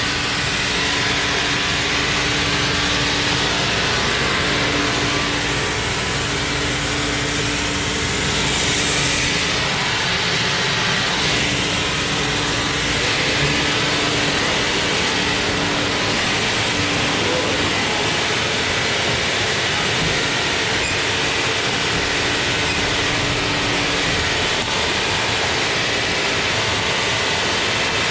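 Sawmill machinery running loudly and steadily, a dense mechanical noise with a steady hum that drops out about three-quarters of the way through.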